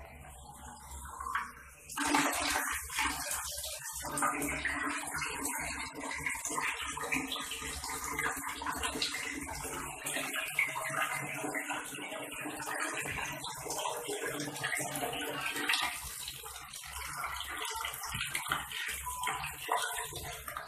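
Water running from a bathroom wall tap into a plastic bottle and a plastic basin below, a steady rush. It starts about two seconds in and cuts off at the end.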